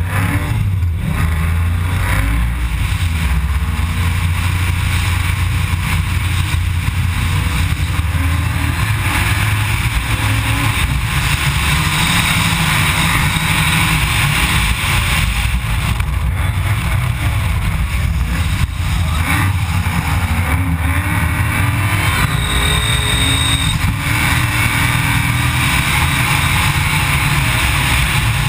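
A drift car's engine revving hard and running loud through a drift run, heard from a camera mounted on the car's bonnet.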